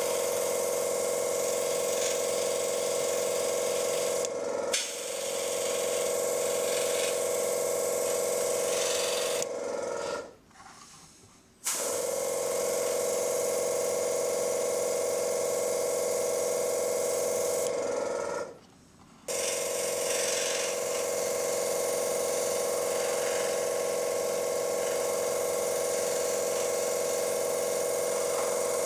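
Airbrush spraying a thin coat of acrylic paint, a steady hum with an airy hiss from the airbrush and its compressor. It stops briefly three times: near 5 s, around 10–12 s, and around 18–19 s.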